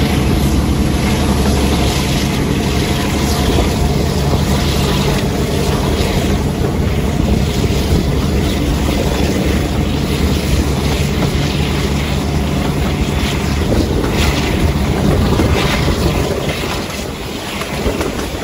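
Class 52 'Western' diesel-hydraulic locomotive's twin Maybach engines running under power, heard from an open train window with wind buffeting the microphone and the rumble of the wheels. The engine sound eases and drops a little about sixteen seconds in.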